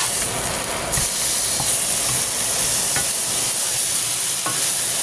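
Chicken breasts searing in a frying pan: a steady sizzling hiss that gets a little louder about a second in, with a few faint pops.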